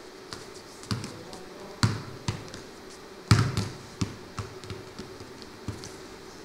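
A football being kicked and bouncing off a hard, glossy stage floor as a boy dribbles it. It makes a string of irregular thumps, the loudest about three seconds in.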